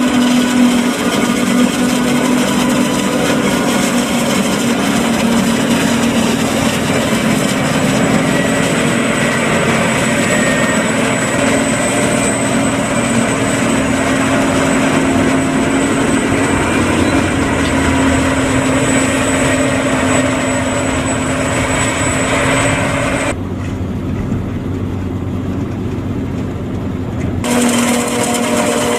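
John Deere 8400i self-propelled forage harvester running under load while chopping maize, a steady machine sound with a constant hum. For about four seconds near the end the sound turns muffled, then returns.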